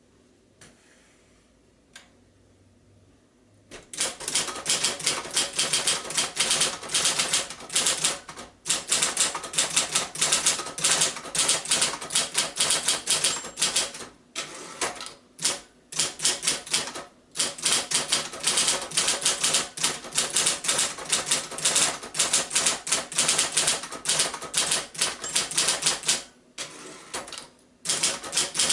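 A 1968 Royal Apollo electric typewriter typing, a fast, continuous run of key strikes with a few short pauses. For about the first four seconds there is only a faint low hum and a click or two, then the typing starts.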